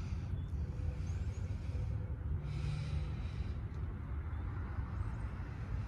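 Steady low rumble of traffic on a nearby highway.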